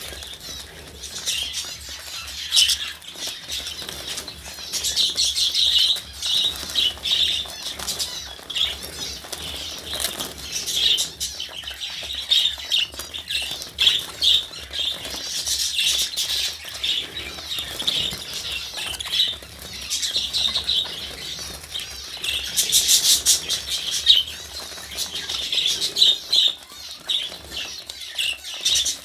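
A flock of budgerigars chattering: many quick, high chirps and warbles overlapping without pause, swelling into louder flurries every few seconds, with wings flapping now and then.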